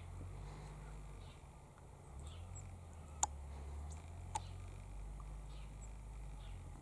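A steady low rumble with two sharp clicks about a second apart, and a few faint short chirp-like sounds.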